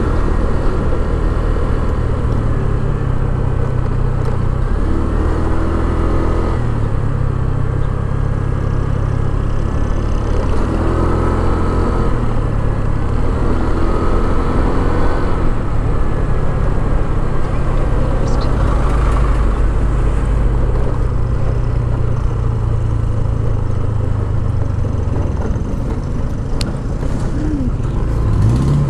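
Motor scooter's engine running while being ridden, its pitch shifting up and down with the throttle, with a short rev rising near the end.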